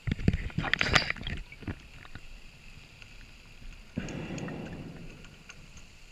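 Scuba diver breathing through a regulator underwater: a burst of exhaled bubbles crackling and rumbling for about a second and a half, then a softer breath through the regulator about four seconds in, fading over a second.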